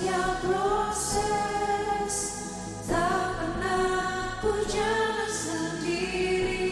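Christian worship song: voices singing long, held phrases in a choir-like blend over instrumental accompaniment.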